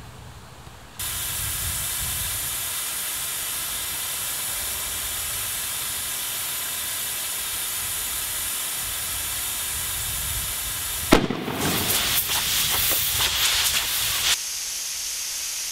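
Compressed air hissing steadily into an overinflated Wilson volleyball, starting about a second in, until the ball bursts with a single sharp bang about eleven seconds in. A few seconds of loud rough rushing noise follow the bang, then steady hissing again.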